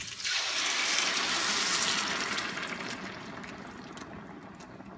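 Blended green tomatillo salsa poured from a blender jar into a hot stainless steel pot of browned pork ribs and their fat, hissing loudly as it hits and dying down after about three seconds. The liquid is deglazing the caramelized browning on the bottom of the pot.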